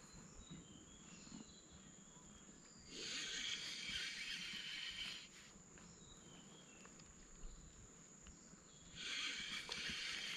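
Riverside outdoor ambience: a thin steady high whine with a few faint high chirps, broken twice by a hissing rush lasting about two seconds.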